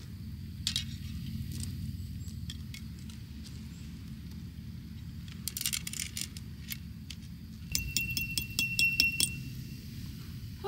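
Metal tent pegs and awning hardware clinking against gravel and stones as a tent awning is staked down. There are scattered light clicks, then near the end a quick run of about a dozen metallic taps that ring briefly.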